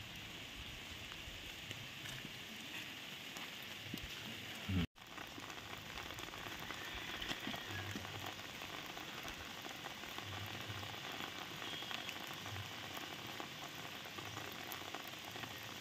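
Light rain falling steadily on a wet road and its puddles, an even patter. About five seconds in there is one brief low thump, and the sound drops out for an instant.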